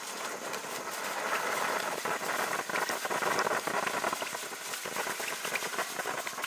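A 200-gram firework fountain burning: a steady hiss of spraying sparks with dense crackling from crackle stars. It grows slightly louder after about a second.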